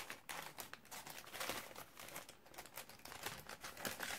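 A small crinkly package being handled and opened by hand: an irregular run of crackles and rustles.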